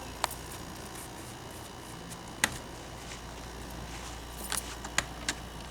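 A handful of short, sharp clicks and taps, scattered irregularly over a steady faint hiss.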